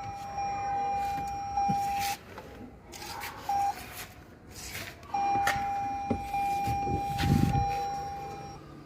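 A steady electronic warning tone, held for about two seconds, a brief blip, then held again for about three and a half seconds, with scattered clicks and a short low rumble in between.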